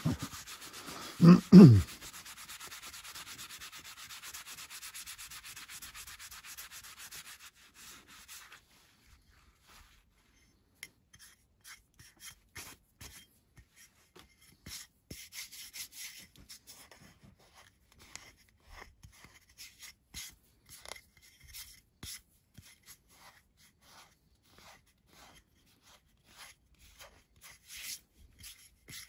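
Cloth rubbed hard over a laser-etched, spray-painted ceramic tile, wiping off paint residue that does not come off easily. A steady scrubbing hiss runs for the first eight seconds or so, then gives way to short, intermittent rubbing strokes. A brief, loud, low thump comes about a second and a half in.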